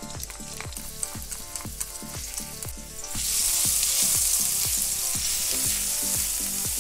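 Minced garlic sizzling in hot oil in a wok, stirred with a wooden spoon; the sizzle gets much louder about three seconds in. Background music with a steady beat plays underneath.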